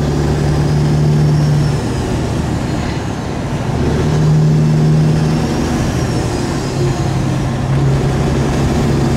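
Diesel engines of a pack of semi trucks running around the track: a steady low drone that grows and eases in loudness a few times.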